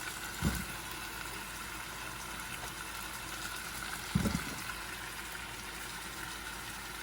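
Potatoes and fish sizzling steadily as they fry in hot oil and spice paste in a pan, with two soft low bumps, about half a second in and about four seconds in.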